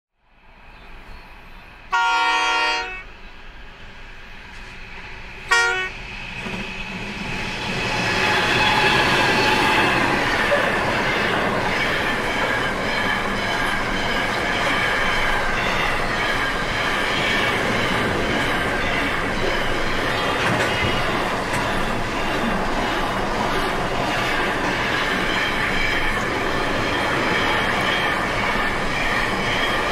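Horn of a Pacific National NR-class (GE Cv40-9i) freight locomotive sounds a blast about two seconds in and a short second toot a few seconds later. Then the train's container wagons roll past at the level crossing with steady wheel and rail noise and clatter.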